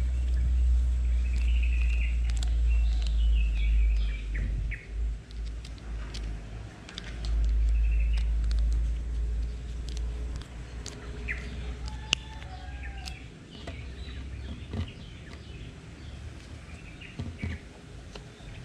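Birds chirping in the background over a low rumble that comes and goes, with small scattered clicks from a screwdriver and metal parts being worked on a spinning fishing reel.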